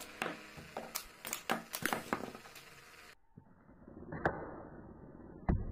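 Sharp clicks and taps from a cardboard toy grenade launcher being worked: a quick, irregular run of clicks over the first three seconds, then two single clicks later on, the first of them the loudest.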